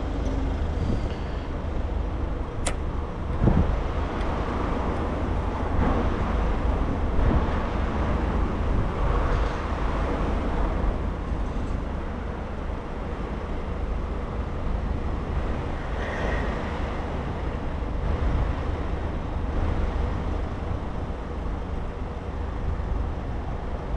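Steady road-traffic noise with low wind rumble on an action camera's microphone while riding a bicycle. A brief knock about three and a half seconds in.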